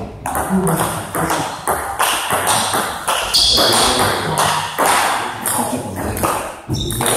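Table tennis ball tapping back and forth between bats and table during a rally, several sharp taps a second.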